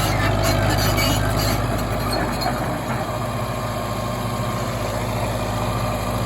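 1940s Caterpillar D4 bulldozer's four-cylinder diesel engine running steadily, with a few clicks in the first couple of seconds.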